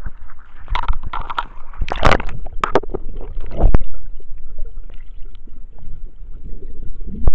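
Water splashing and sloshing around an underwater camera in its housing as it goes below the surface, with several loud splashes about one to four seconds in, then a muffled underwater rumble with scattered small clicks.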